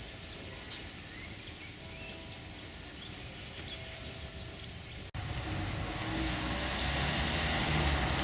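Street traffic noise: a faint hum, then about five seconds in a louder rush of road noise with a low rumble that grows toward the end, like a car passing.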